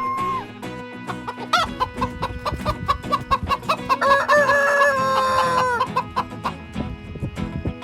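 Rooster: a run of short clucking notes, then one long held crow that stops about six seconds in, over background music.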